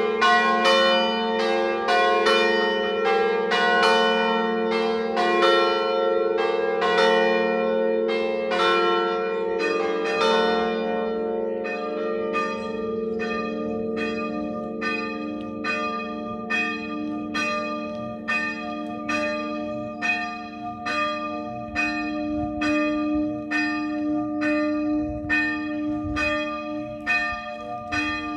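Swinging church bells in a full peal, Treviso-style ringing, the set cast by Cavadini of Verona in 1926 with the third bell by De Poli in 2022. For about the first ten seconds several bells strike thickly over one another. Then the ringing thins to evenly spaced strokes, a little under two a second, over the lingering hum of the larger bells.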